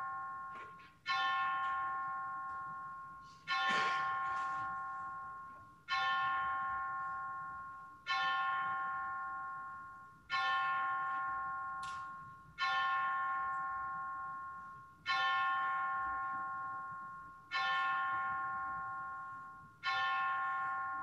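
A bell tolling slowly, nine strikes about two and a half seconds apart, each ringing out and fading before the next: a memorial toll.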